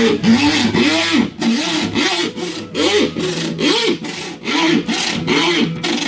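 Hand saw cutting through a laminated car windshield in rapid back-and-forth strokes, about two a second. Each stroke carries a loud, rising and falling whistling squeal.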